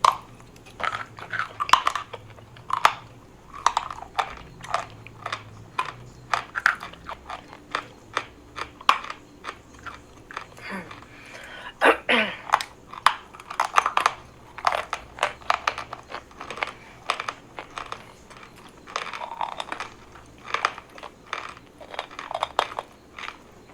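Close crunching and chewing of chalk: a person biting off and chewing pieces of a block of chalk, giving many sharp, irregular dry crunches.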